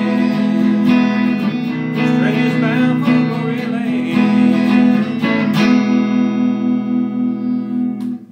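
Electric guitar strummed in a gospel-blues rhythm, then a final chord left ringing with a quick, even pulse for a couple of seconds before it is cut off near the end.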